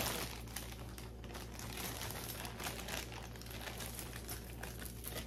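Packaging crinkling as it is handled and opened: a steady run of small, dense crackles.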